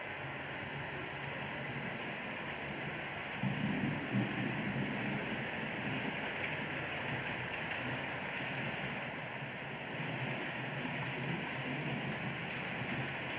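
Model trains running on the layout: a steady rushing rumble of wheels on rails and motors, getting louder about three and a half seconds in as a train runs close by.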